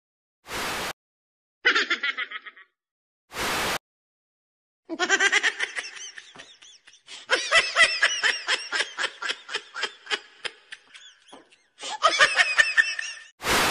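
Laughter sound effects: a short burst of rhythmic laughing, then a long run of loud laughing that pulses several times a second. Short bursts of hiss separate the clips.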